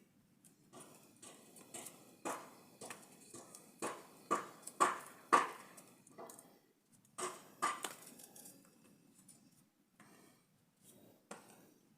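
Irregular sharp knocks, clicks and scrapes of hand-held kitchen work, loudest in a cluster about four to six seconds in.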